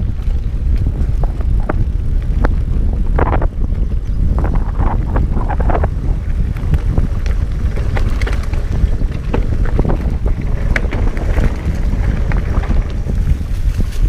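Wind rumbling on the camera microphone while a Specialized Rockhopper Comp 29 mountain bike rolls over a dirt singletrack. Frequent short clicks and rattles come from the bike as it goes over bumps in the trail.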